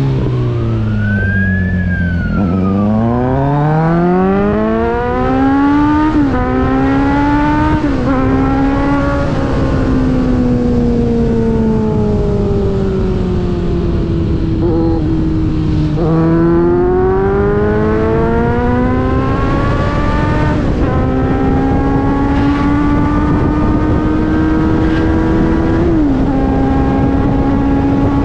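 A running motor or engine whose pitch slowly rises and falls again and again, with small sudden pitch steps, over a steady rushing noise.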